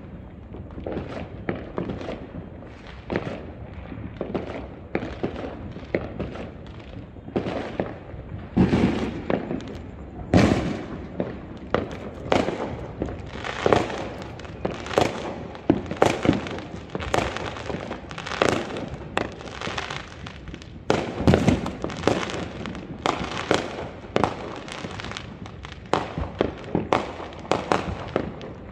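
Fireworks going off in a rapid, irregular string of bangs and crackling pops, with a few deeper, louder booms among them. The bangs come thicker in the second half.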